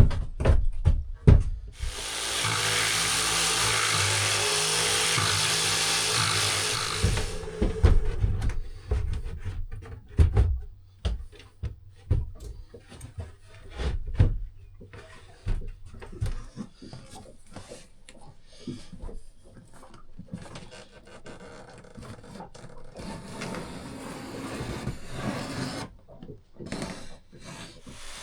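Woodworking on wooden parts: a power tool runs steadily for about five seconds near the start, then comes a long series of knocks, taps and scraping as the wood is handled and fitted.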